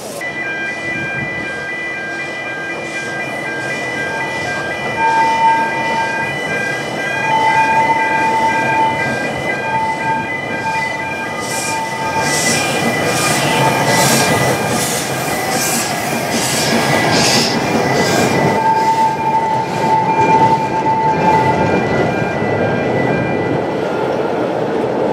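Narrow-gauge steam locomotive hauling a train slowly round a tight curve, with steady high-pitched squealing through most of it. About halfway through comes a run of sharp exhaust beats, about two a second.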